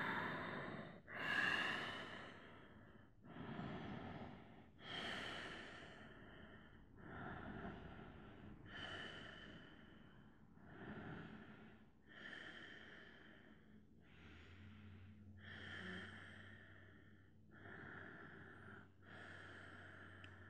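A man breathing slowly and deeply, close to the microphone: soft rushes of air, inhale and exhale taking turns about every second and a half.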